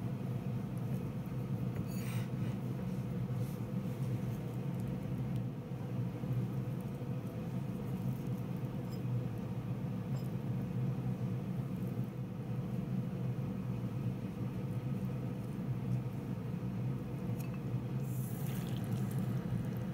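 Steady low hum throughout, with a few faint clicks and soft handling sounds as toppings are placed into a ceramic bowl of soba with wooden chopsticks.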